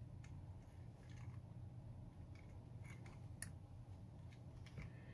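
Faint scattered clicks and light handling noise as small wires and plastic parts of an opened DJI FPV remote controller are pressed under its heat sink, over a low steady hum.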